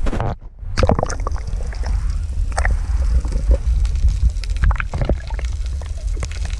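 Water heard from just below the surface: a steady low rumble with gurgling and sloshing, and scattered sharp clicks and knocks. The sound drops away briefly about half a second in.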